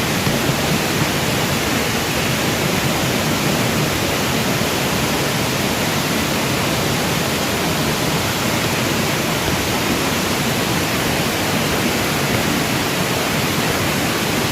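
Waterfall rushing: a steady, even roar of falling water with no break or change.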